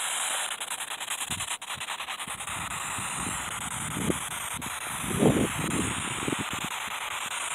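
Rubbing and scuffing handling noise from a handheld phone carried while walking, over a steady hiss, with a fast flutter in the first couple of seconds.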